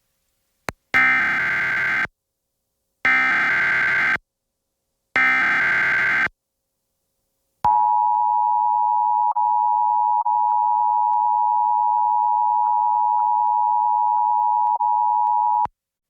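Emergency Alert System tones: three bursts of SAME digital header data, each about a second long with about a second between them, then the EAS two-tone attention signal (853 and 960 Hz), held steadily for about eight seconds.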